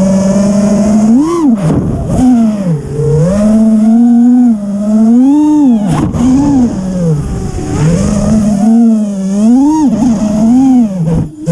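FPV quadcopter's brushless motors (T-Motor F40 III, 2600 KV) whining, the pitch swooping up and down repeatedly as the throttle is pushed and cut.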